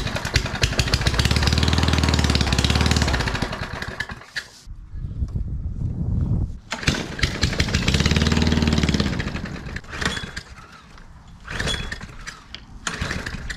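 Small push-lawnmower engine running and revving up and back down, cutting out a few seconds in, then catching again, surging up and down once more and fading to ragged bursts near the end. Its throttle is held wide open by a hard-mounted return spring, so only the governor pulls the speed back.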